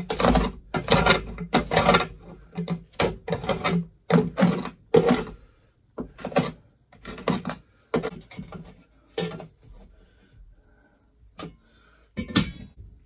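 Hand scraping and brushing dirt and debris off a metal door sill, in repeated gritty strokes about two a second at first, then sparser and fainter; a last louder scrape near the end as a long aluminium strip is picked up.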